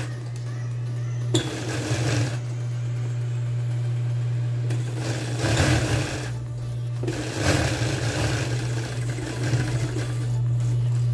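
Sewing machine stitching the hem of denim shorts in three short runs, with a steady hum underneath.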